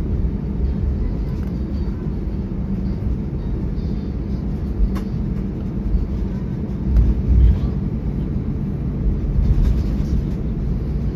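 Cabin noise of a jet airliner rolling along the runway after landing: a steady low rumble of engines and wheels, with a couple of light knocks and a brief swell in the rumble about seven seconds in.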